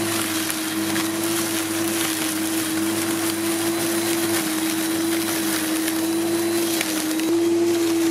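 Parkside PRM 1300 A1 electric lawnmower's 1300 W motor running with a steady whine as the blade cuts through tall grass at the 60 mm height; the pitch dips slightly about seven seconds in and then recovers.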